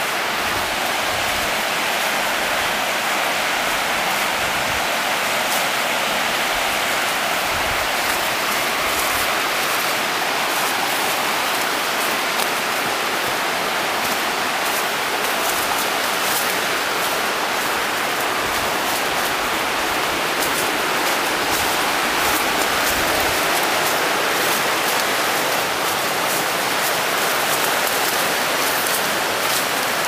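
Mountain stream rushing, a steady hiss of moving water, with a few soft low thumps scattered through it.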